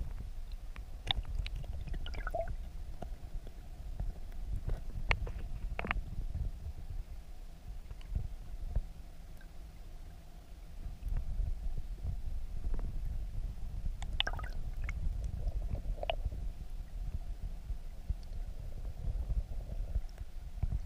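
Muffled low rumble of stream current heard from underwater, with scattered sharp clicks and small knocks.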